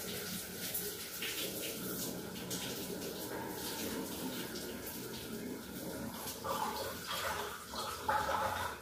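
Starch water pouring out of a steel pot of boiled rice into a steel sink, running steadily past a plate held over the pot's mouth, with a couple of louder splashes near the end.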